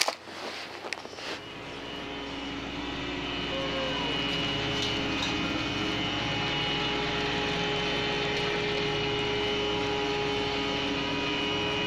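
A few rustles and clicks of handled snack packaging, then a steady engine and machinery drone of a fishing vessel fades in over the first couple of seconds and holds evenly, with several constant humming tones.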